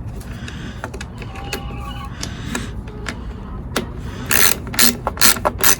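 Ratchet wrench tightening a small mounting nut: light scattered clicks, then about five loud ratcheting strokes in quick succession near the end.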